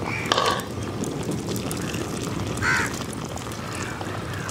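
A bird, crow-like, gives short caws near the start and again a little past halfway. Under it runs a steady low crackling and bubbling from a wood fire and the pot of curry boiling on it.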